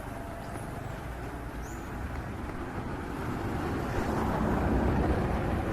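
Rumble of a vehicle going by on the road, swelling about four to five seconds in and easing off near the end.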